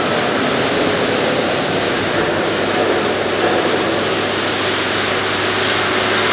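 Steady workshop machinery noise, an even rushing sound over a low steady hum.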